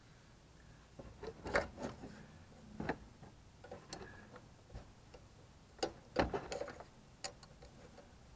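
Scattered clicks and knocks of hard plastic and metal parts as hands fit a replacement coolant heat storage (CHS) tank water pump into place on a 2009 Toyota Prius. They come irregularly, starting about a second in.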